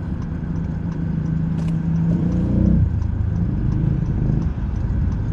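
Motor vehicle engine running steadily, its pitch briefly rising and then dropping back about two to three seconds in.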